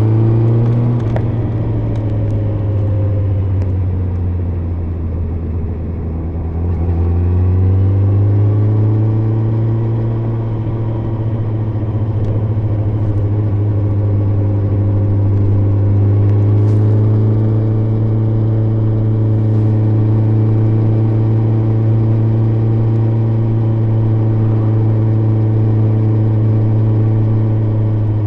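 Yamaha FZ1's inline-four engine under way, heard muffled through layers of jackets with the recorder in an inner pocket. It finishes pulling up through the revs, runs at lower revs for a few seconds, picks up again about eight seconds in, then holds a steady cruising note.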